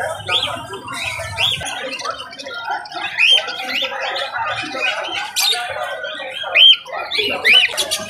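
Many caged parrots calling together: sharp, arched squawks repeat every half second or so over a dense background of chattering calls, with the loudest squawks around the middle and near the end.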